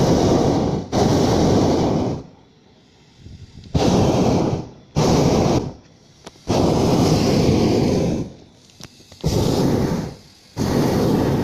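Propane burner of a hot air balloon firing in a series of blasts, each about one to one and a half seconds long, with short gaps between them.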